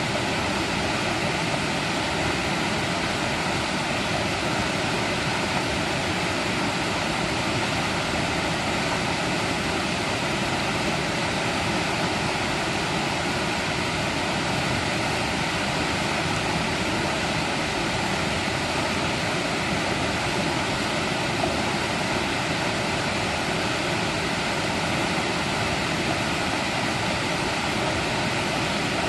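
A mountain stream rushing and splashing over rocks, a steady, even wash of water noise.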